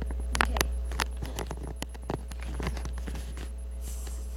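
Scattered light knocks and clicks at irregular intervals, over a steady low hum.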